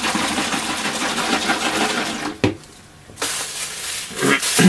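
Rustling and rubbing of a gloved hand working an oily rag and a tin of Danish oil, with a sharp click about two and a half seconds in, then a short lull before the rubbing resumes.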